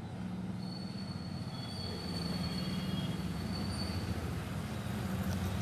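A steady low mechanical rumble that grows louder about two seconds in, with thin high squealing tones over it in the middle. It cuts off suddenly near the end.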